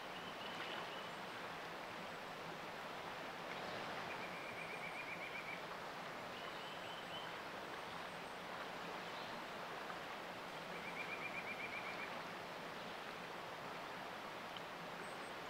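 Steady rush of a flowing river. A small bird gives a rapid trill twice, about four seconds in and again about eleven seconds in, with a couple of short chirps between.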